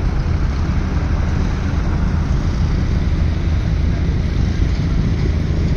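Steady low rumble of a moving vehicle, engine hum and road noise, with some wind noise on the microphone.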